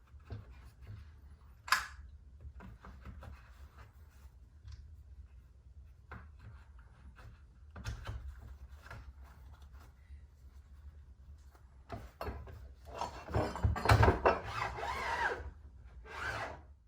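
Handling noises from the hand planer and its parts as they are set up: scattered clicks, knocks and rubbing, then a louder stretch of rustling and scraping near the end. The planer's motor is not running.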